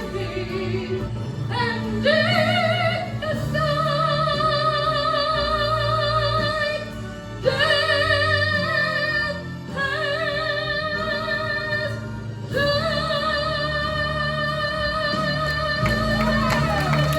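Gospel song: a singer holding long, drawn-out notes with vibrato in several phrases over steady instrumental accompaniment.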